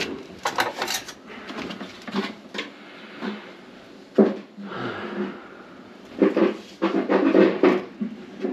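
Irregular knocks and clatter of household objects being handled and set down, busier near the end.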